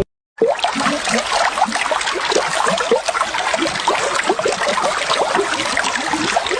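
A stream of water trickling and babbling, a dense run of small quick gurgles, starting abruptly after a brief silence.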